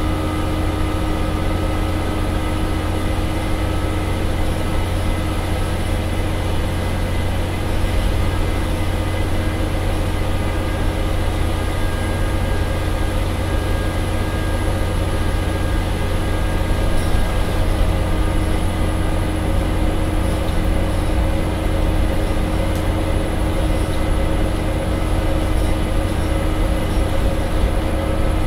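Scania CN94UB Omnicity bus's rear-mounted diesel engine working hard under way, heard from the back of the saloon as a steady low drone with road noise and a faint whine on top.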